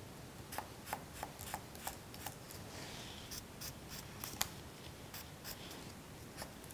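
Green felt-tip marker drawing short stripes on paper: a quiet, irregular series of quick scratchy strokes.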